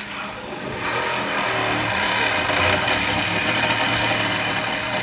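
Hydraulic rescue tool (jaws of life) running as it works on a car's door frame: a loud, steady mechanical hum and hiss that grows louder about a second in.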